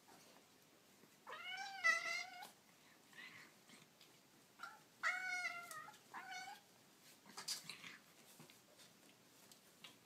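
Young kittens mewing: one long, wavering mew about a second in, then a short mew, a longer one and another short mew in the middle. A few faint rustles follow.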